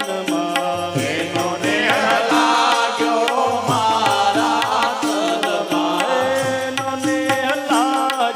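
Indian devotional music: a melody over a repeating bass line with a regular percussion beat.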